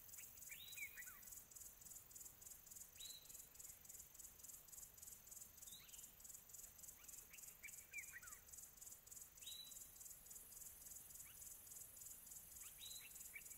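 Nature-ambience sound effect: crickets chirring steadily in a fast, even pulse, with a bird's short calls falling in pitch every two to three seconds.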